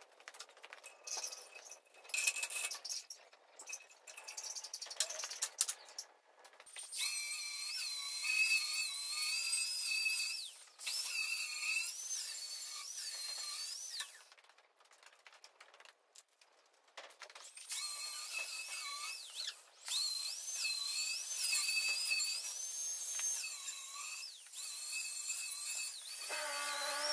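Angle grinder cutting into steel in several runs, its whine dipping and rising as it is pressed on and eased off, with a pause of a few seconds in the middle. Before it starts there are scattered metallic clinks of tools being handled.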